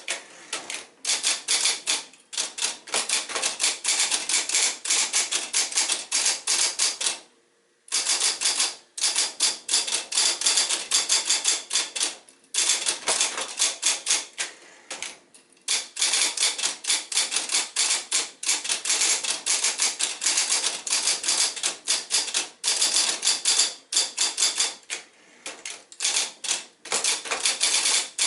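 Sears Electric 1 portable electric typewriter, built by Nakajima, being typed on fast: rapid runs of type strikes clacking against the platen. The strikes break off briefly about a quarter of the way through.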